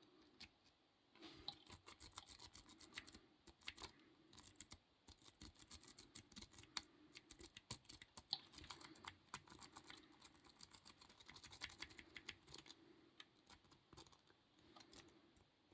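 A lock pick raked and zipped back and forth across the four pins of a small bell padlock: quick, irregular, faint metallic clicking and scraping, busiest in the middle. The pins are not setting and the lock stays shut.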